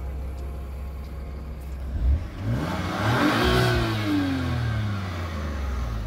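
BMW F80 M3's twin-turbo straight-six idling, then revved once about two seconds in: the pitch climbs to a peak and drops back to idle over about three seconds.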